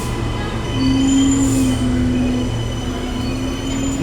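Electric passenger train pulling into the station, its wheels squealing in several thin high tones over a steady low hum and rumble. The squeal is loudest from about a second in.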